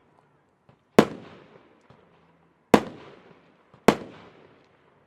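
A 200-gram consumer firework cake firing: three loud bangs of aerial shells, about a second or two apart, each fading out in an echoing tail.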